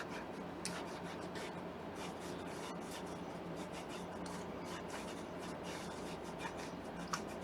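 Kitten crunching dry kibble: faint, irregular small crunches and clicks, over a steady low electrical hum.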